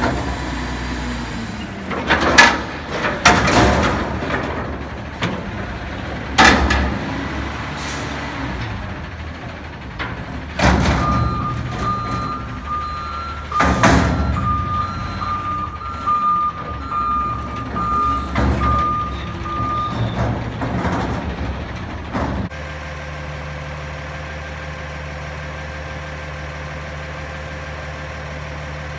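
Front-loading garbage truck working a steel dumpster: several loud metal bangs as the raised container is shaken out over the hopper, then a run of reversing beeps for about nine seconds with more clanks as the dumpster is lowered and set down. Near the end the sound changes to a truck's diesel engine idling steadily.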